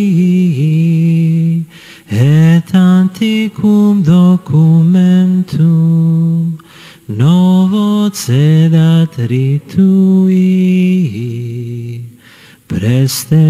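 Slow devotional hymn sung by voices in long held notes, in phrases with short breaks about every five seconds.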